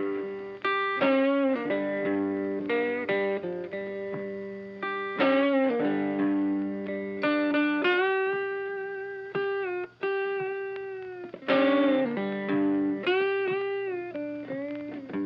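Background music: a guitar playing a melodic line of plucked notes, some of them bent in pitch.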